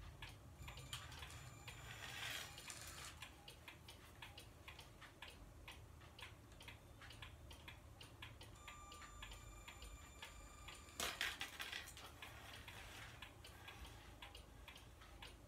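Faint, steady ticking of a pendulum grandfather clock, with a brief louder rustle about eleven seconds in.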